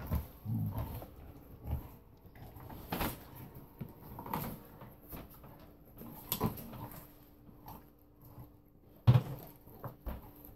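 A Carolina Dog gnawing and chewing on a partially frozen pork shoulder roast: irregular wet chewing clicks and dull knocks a second or so apart, the loudest knock about nine seconds in.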